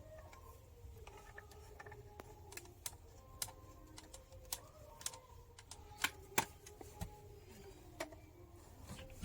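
Irregular sharp clicks and taps, a few of them louder about six seconds in, like small hard parts being handled.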